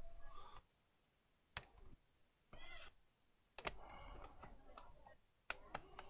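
A few sharp plastic clicks, spread a second or two apart, as the keyboard of a Dell Inspiron 7520 laptop is pried up and its retaining clips let go, with quiet handling noise between.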